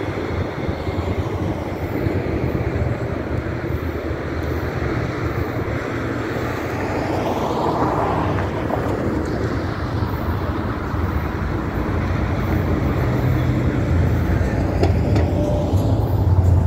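Road traffic passing over a railroad grade crossing: a car goes by about halfway through, and a pickup truck rumbles past near the end over a steady background of traffic noise.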